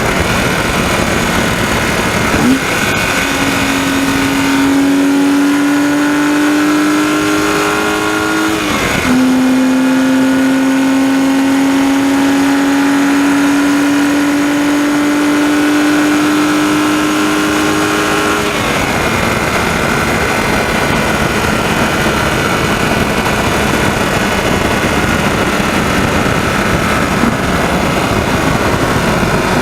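BMW 130i's 3.0-litre straight-six heard from the engine bay, pulled hard through the revs: about two and a half seconds in the engine note jumps and climbs, drops at an upshift about nine seconds in, climbs again to high revs, and falls back to a steady cruise when the throttle is released about eighteen seconds in. The owner says the lift-off from about 6500 rpm is when a rattling tick in this engine is best heard.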